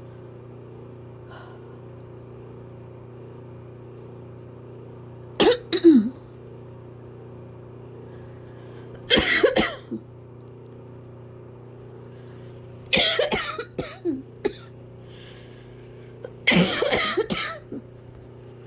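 A person coughing hard in four bouts a few seconds apart, each a cluster of several harsh coughs. Underneath runs the steady hum of a loud fan.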